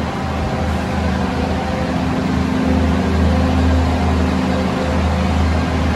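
Stationary diesel train idling at the platform: a steady low engine drone with a constant hum over it, getting a little louder about halfway through.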